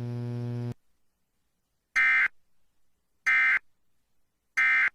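Emergency Alert System end-of-message tones: three short bursts of digital data tones, each a fraction of a second long and about a second and a quarter apart, marking the end of a broadcast severe thunderstorm warning. Before them a steady electrical hum cuts off under a second in.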